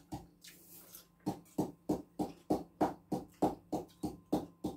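Kitchen knife chopping vegetables on a cutting board, a steady rhythm of short sharp cuts about three a second, starting about a second in.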